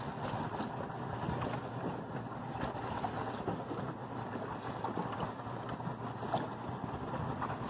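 Wind buffeting the microphone over choppy sea, with water lapping and slapping against the hull of a small boat.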